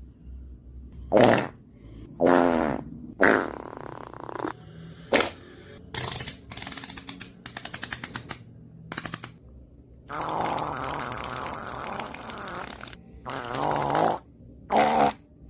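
A string of about ten farts, short pitched blasts and buzzes, with a rapid sputtering rattle in the middle and one long drawn-out fart near the end.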